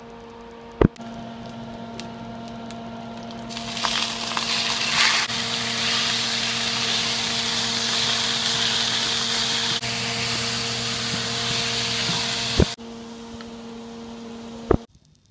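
Beef cubes sizzling in a hot stainless-steel pan while being stirred: a loud, even hiss that starts about three and a half seconds in and cuts off suddenly near the end. A steady low hum runs underneath, with a few sharp clicks.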